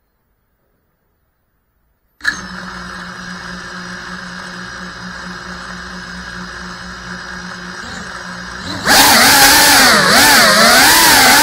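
Silence, then about two seconds in, a click as the GEPRC CineLog35 cinewhoop's brushless motors arm and spin at idle with a steady whine. Near the end the motors throttle up to a much louder whine as the drone lifts off, its pitch rising and falling with the throttle.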